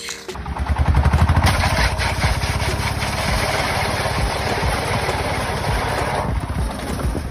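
A motor or engine running with a fast, even pulse, starting just after the beginning and easing off about six seconds in.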